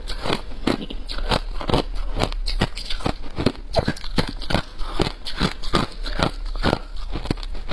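Crushed ice being chewed, a steady run of crisp crunches about three a second.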